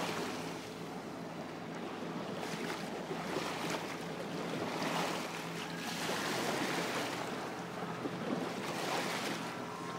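Small lake waves lapping and washing up onto a sandy shore, swelling and easing every couple of seconds, with a faint steady low hum underneath.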